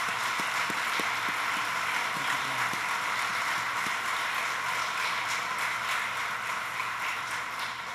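Crowd applauding steadily, a dense patter of many hands clapping that eases off slightly near the end.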